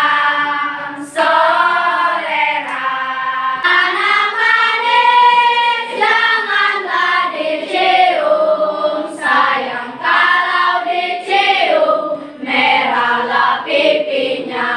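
A class of young schoolchildren singing a traditional song together as a group, phrase after phrase with short breaths between.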